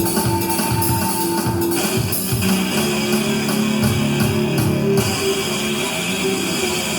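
Music with held notes that change every second or two.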